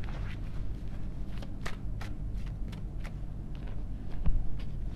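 Light clicks and taps, several a second and unevenly spaced, over a steady low hum.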